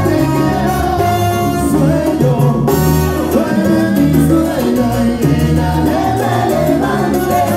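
Loud salsa music with a singer and a steady, driving bass line.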